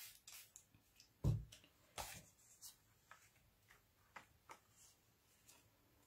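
Faint handling sounds of paper crafting: short spritzes from a water spray bottle onto ink on a craft mat, a dull thump about a second in, and scattered light taps as a card is pressed into the wet ink.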